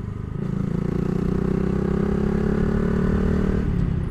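Honda Grom's small single-cylinder engine pulling steadily as the motorcycle rides along the road, its note growing stronger about half a second in.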